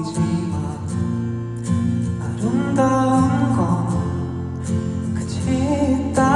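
Live concert performance of a pop ballad: a male voice singing over guitar and band accompaniment.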